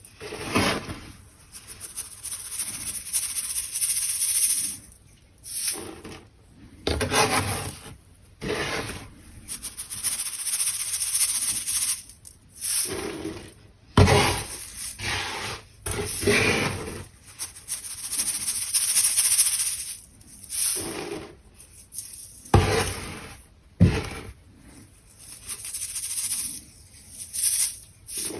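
Crunchy dried baking soda crushed and crumbled by hand: repeated gritty crunching passes, each a second or two long with short pauses, and a few sharper crunches.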